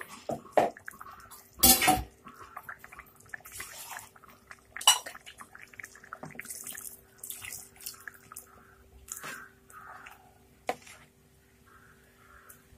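A long-handled metal ladle stirring chicken curry in a pot, the liquid sloshing, with a few knocks of the ladle against the pot, the loudest about two seconds in. Ground roasted coconut paste and a little water have just gone into the curry and are being stirred through.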